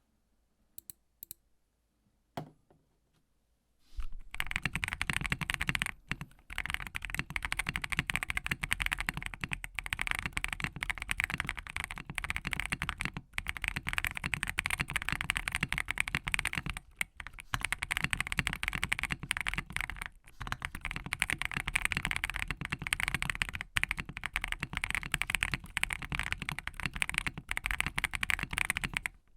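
Typing on a Tiger 80 Lite mechanical keyboard with case foam and lubed Boba U4T tactile switches. A few faint clicks come first, then fast, continuous keystrokes begin about four seconds in and run on, with a handful of brief pauses.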